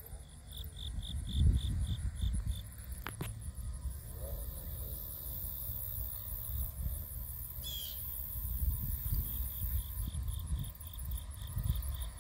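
Insects chirping in an even, rapid pulse of about five chirps a second, which stop after a couple of seconds and start again near the end, over a low, uneven rumble.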